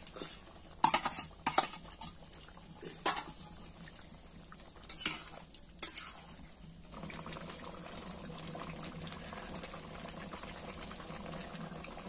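A metal spatula scraping and knocking against a metal kadai as a chicken and potato curry is stirred, with several strokes in the first six seconds or so. From about seven seconds in, the stirring stops and the curry simmers steadily.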